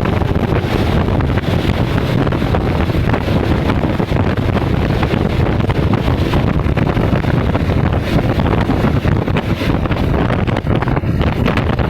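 Train hauled by an ALCO WDM3A diesel locomotive running, a loud steady low rumble with heavy wind buffeting on the microphone.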